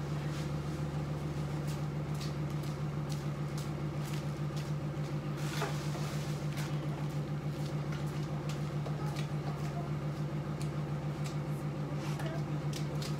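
A steady low hum with a fast, even pulse, with faint knocks and footsteps over it; one knock about five and a half seconds in is the loudest.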